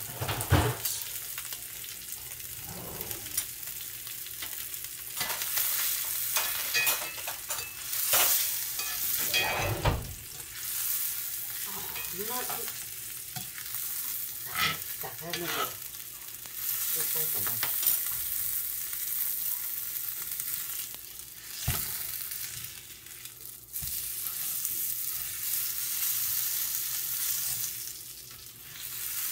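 Dry-aged ribeye sizzling in hot fat in a cast-iron skillet, the hiss swelling and easing, with occasional clinks and scrapes of utensils against the pan as the steak is basted and turned.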